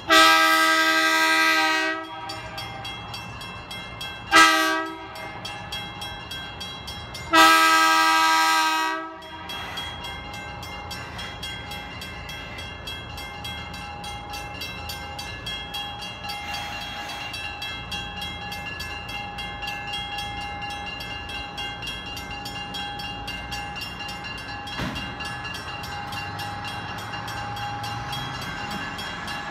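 Budd rail diesel car's horn sounding for a grade crossing: a long blast, a short one, then another long one. After the blasts, the crossing signal's bell rings steadily, and the railcar's diesel engine rumbles closer near the end.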